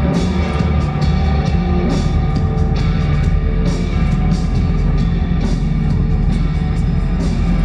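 Rock music with a steady beat, the soundtrack of a promotional film played loud over a hall's speakers.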